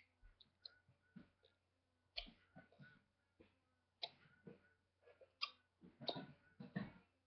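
Faint, irregular clicks and soft knocks over quiet room tone, with a few louder ones between about four and seven seconds in.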